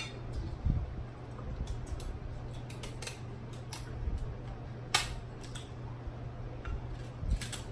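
Kitchen shears snipping and cracking through crab leg shells: a string of short, sharp cracks, the loudest about five seconds in, with a few dull thumps of shells being handled.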